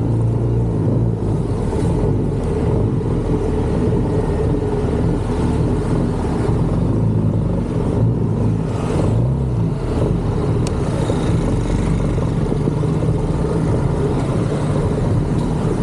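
Motor scooter engine running while riding through city traffic, with a steady low rumble; its pitch wavers briefly about nine seconds in as the engine speed changes.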